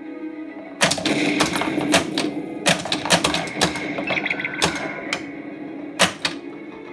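Stern Meteor pinball machine in play: rapid, irregular sharp clacks of the solenoids, flippers and ball striking targets. Underneath runs a steady electronic tone, with a brief burst of beeping sound effects about four seconds in, from the add-on WAV Trigger sound board playing through an external speaker.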